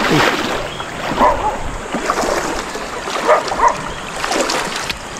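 Shallow, flowing river water with irregular splashes of someone wading through it.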